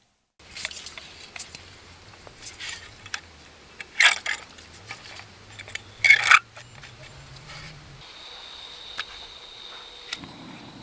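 Small folding canister camp stove being handled: metal clicks and scrapes as its pot-support arms are swung out and it is screwed onto a gas canister, with two louder bursts of noise about four and six seconds in. A steady high whine sets in about eight seconds in.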